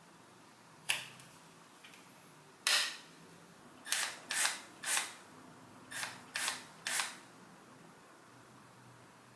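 A series of sharp plastic clicks and knocks from handling a Milwaukee M12 cordless impact driver, about eight in all. They come singly early on, then in two quick runs of three.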